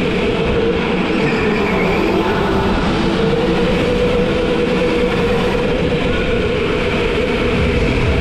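Go-kart engine running at steady speed, a loud constant drone whose pitch edges up slightly about three seconds in, over a rattling, rumbling noise.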